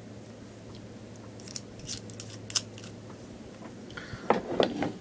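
Light metallic clicks and scrapes of a small flathead screwdriver bit working on a Glock 23 pistol slide during detail stripping, with louder handling sounds near the end. A low steady hum runs underneath.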